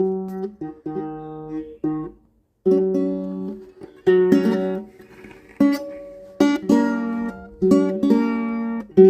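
Acoustic guitar (violão) played with a series of strummed chords, each struck sharply and left to ring out, with a short pause about two seconds in.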